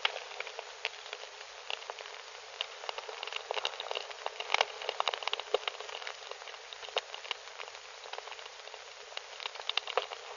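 Fire crackling: a dense, irregular run of pops and snaps over a steady hiss, starting abruptly, heard through an old narrow-band film soundtrack.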